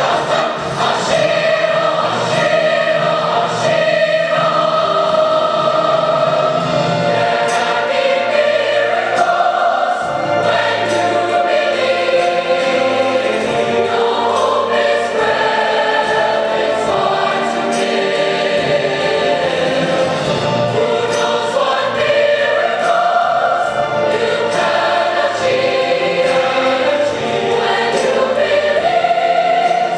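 A choir singing, many voices holding long notes together and moving slowly between them.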